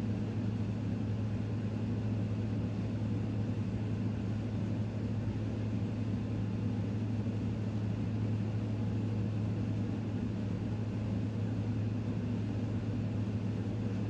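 Steady low mechanical hum with no change in pitch or level.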